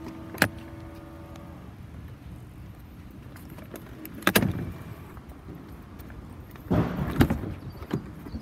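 A car's electric power seat motor whirring steadily for about a second and a half, with a sharp click partway through. Then a single clunk, and a cluster of knocks and clicks from the seat and door trim being handled near the end.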